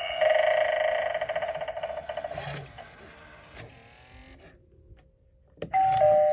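Gemmy animated eyeball doorbell prop playing through its small speaker: a warbling electronic sound effect that fades out, then a click as it is triggered again and the start of a two-tone ding-dong chime near the end.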